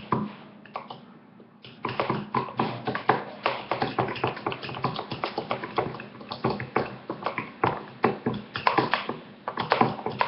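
Fork tapping and clinking against a bowl in quick, uneven strokes while stirring pancake batter. The taps start about two seconds in, after a short lull.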